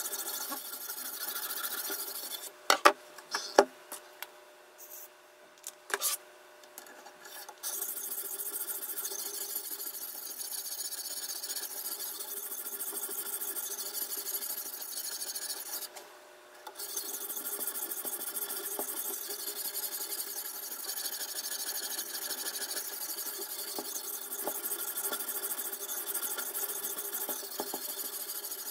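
A sharpening stone on a guided-rod knife sharpener scraping back and forth along the steel edge of a clamped kitchen knife. The strokes pause between about two and eight seconds in, when a few sharp clicks sound, and break off briefly near the middle.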